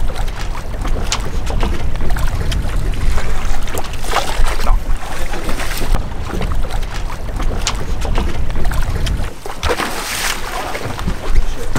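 Wind buffeting the microphone aboard a small fishing boat at sea, a heavy uneven rumble with a hiss over it, broken by a few sharp knocks.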